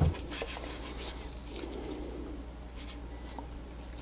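Handling noise: gloved hands rustle and multimeter probe tips click lightly against the rear contacts of a T12 soldering tip. There is a dull bump right at the start.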